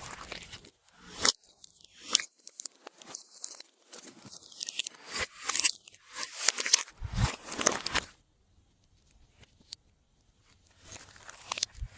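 Glossy slime being squished and stretched by hand: a run of sticky crackling clicks and small pops, which stops about eight seconds in and starts again near the end.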